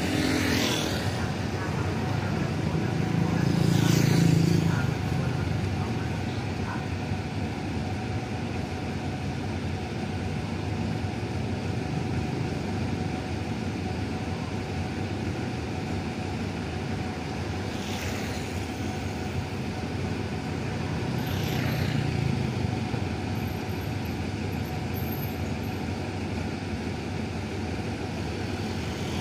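Hitachi diesel-electric locomotive 4512 idling while standing, a steady engine drone with a faint steady whine. Motorcycles and cars pass close by several times, their pitch falling as they go; the loudest passes come about four seconds in and again around twenty-two seconds.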